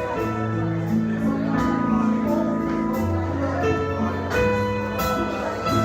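Slow instrumental church worship music: held chords over a bass line, changing every second or so.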